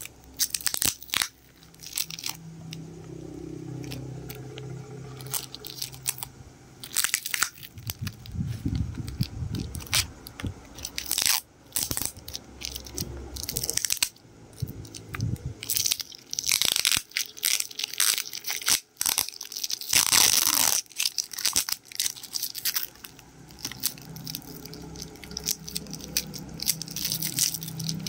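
Clear plastic shrink wrap being peeled and torn off a cylindrical plastic tub by hand, crinkling and crackling in irregular bursts. One louder stretch of crackling comes about two-thirds of the way through.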